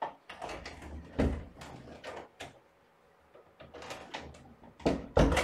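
Clattering knocks, clacks and dull bumps of something being handled off-camera, like a door or cupboard being worked. They come in two bursts, the second ending with the loudest knock.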